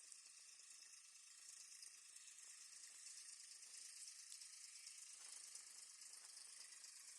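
Near silence with a faint, steady high-pitched hiss.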